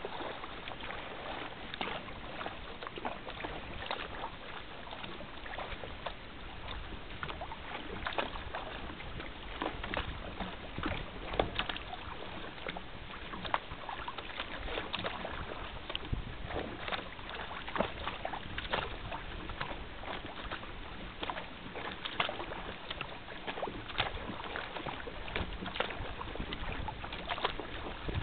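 Water rushing and splashing against the hull of a rotomolded sea kayak moving at speed through choppy water, with frequent irregular sharp splashes over a steady wash.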